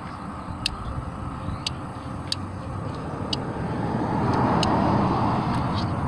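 Fuel pump relay clicking sharply about once a second, at uneven intervals, as the distributor of a 1987 Ford Bronco II 2.9 is turned by hand. Each click shows the pickup coil is sending its signal. Underneath is a steady rumble that swells after about four seconds.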